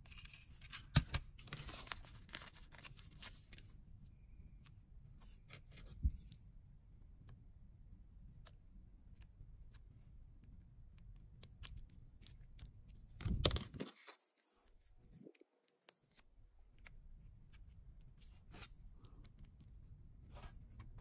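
Small plastic building-set pieces being handled and pressed together: scattered light clicks and short rustles, with a louder rustle about thirteen seconds in.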